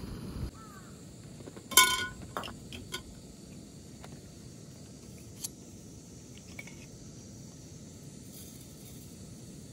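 A sharp glass clink with a short ring about two seconds in, the loudest sound, followed by a few lighter clicks and taps as glass and metal coffee gear is handled.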